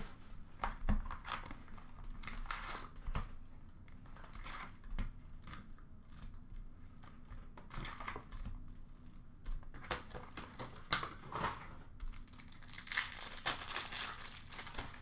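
Trading card pack wrappers, Skybox Metal Universe hockey packs, being torn open and crinkled by hand, in irregular scratchy bursts, with a longer run of crinkling near the end.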